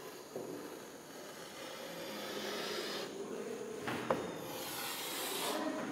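Chalk drawn across a chalkboard in long scratchy strokes as lines are ruled on a diagram. The scraping breaks off briefly about three seconds in, and a sharp tap of the chalk follows near four seconds.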